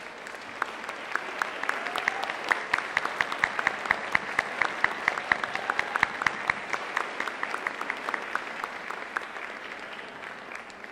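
Audience applauding in a hall, swelling over the first couple of seconds and tapering off toward the end, with sharp individual claps standing out from the crowd's clapping.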